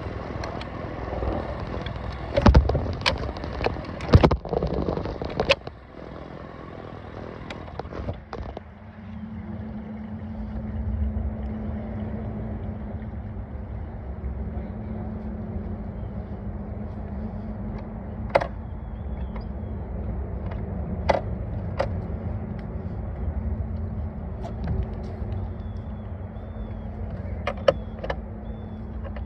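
Outboard motor running on a small boat, with loud knocks and rushing noise in the first few seconds; from about eight seconds in it settles to a steady low hum, with a few sharp clicks.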